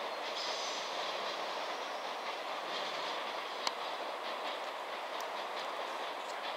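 Container freight train's wagons rolling away down the line: steady wheel-on-rail noise, with one sharp click about three and a half seconds in.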